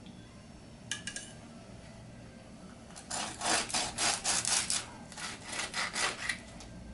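Knife sawing back and forth through the crisp, crackling skin of a roast pork shoulder on a wooden cutting board, in a quick run of rasping strokes at about three to four a second from about three seconds in. A brief clicking about a second in.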